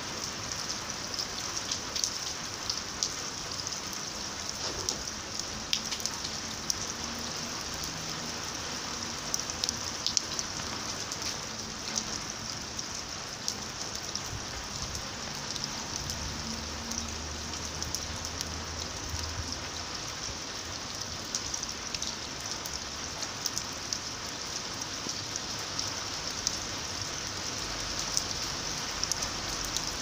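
Steady rain falling into a shallow sheet of standing water on a flat concrete surface, heard close to the water: an even hiss dotted with many small, sharp splashes of single drops.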